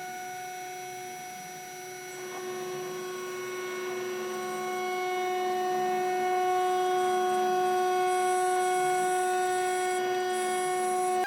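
Spindle of a homemade PrintNC CNC mill running at a steady high-pitched whine while milling aluminum. It grows louder from about two seconds in and then holds.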